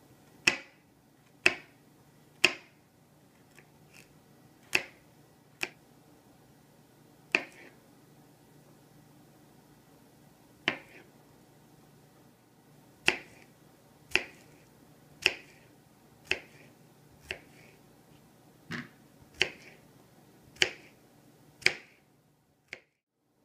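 Kitchen knife chopping vegetables on a plastic cutting board: single sharp knocks of the blade on the board, about one a second, with a pause of a few seconds in the middle.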